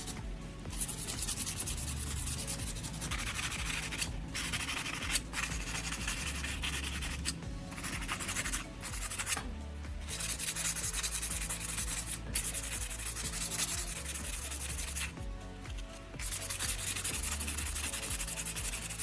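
Sandpaper scrubbing surface rust off a steel kitchen knife blade, a rough hiss in long strokes broken by short pauses, with background music underneath.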